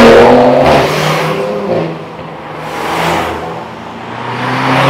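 Performance cars accelerating hard past on the road, their engines revving loudly. The sound is loud at the start, dips, and swells again as another car approaches near the end.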